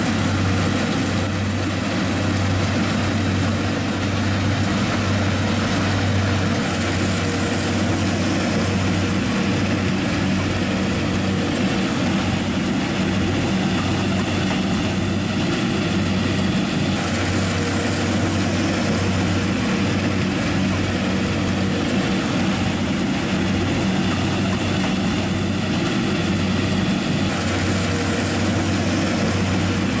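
Combine harvester running in a steady, unbroken drone from its heavy engine and machinery.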